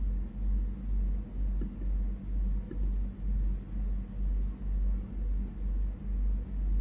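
Low rumble throbbing evenly a little over twice a second, with a faint steady hum above it. Two faint clicks come about one and a half and two and a half seconds in.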